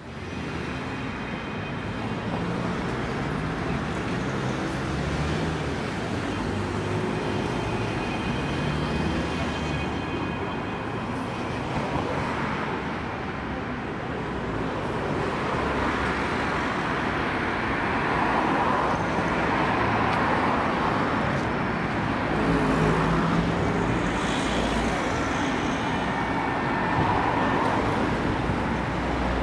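Busy city-street traffic: a steady wash of cars passing and idling in heavy traffic.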